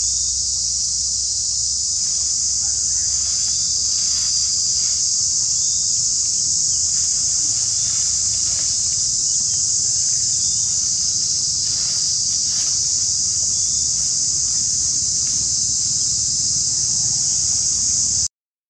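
Steady high-pitched drone of a chorus of insects, unbroken, cutting off abruptly just before the end.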